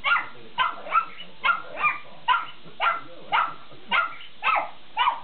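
A pug barking at a dog on the television: a rapid, even run of short, high barks, about two or three a second.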